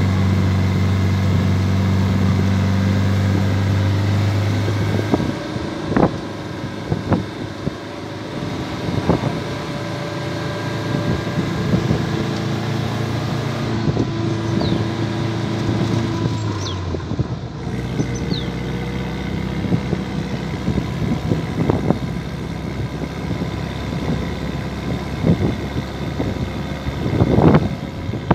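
Electric vehicle driving uphill: a steady motor hum and whine whose tones shift a few times, with scattered short knocks and rattles from the ride and some wind noise.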